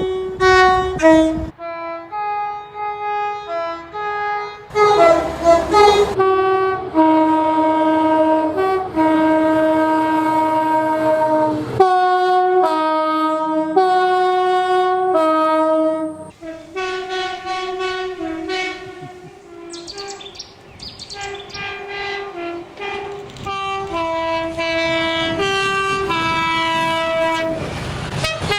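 Multi-chime train horn sounding a long series of blasts, short and long. Each blast is a chord of several notes, and the chord changes from one blast to the next. Some blasts slide in pitch as they start or end.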